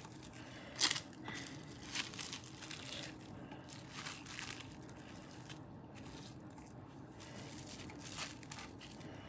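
Plastic wrap crinkling softly as hands press and smooth it over a stencil on a slab of polymer clay, in scattered short crackles, the loudest about a second in.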